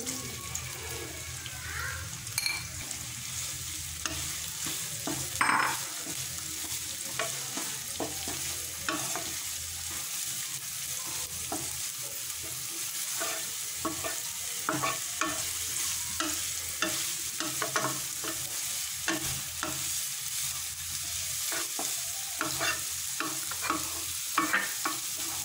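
Sliced red onions sizzling in hot oil in a nonstick pan, stirred with a wooden spatula that scrapes and taps against the pan many times.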